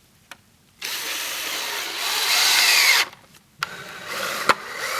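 Power drill running in two bursts of about two seconds each, with a short pause between; the first gets louder partway through.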